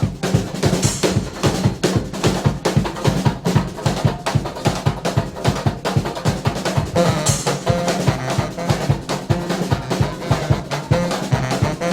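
Brass band's drums, bass drum and snare, playing a fast, steady groove over a low bass line. A few short horn notes come in a little past halfway.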